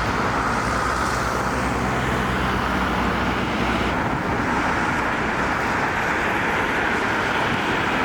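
Steady street traffic noise: a continuous rush of passing vehicles, with a low engine hum under it in the first half.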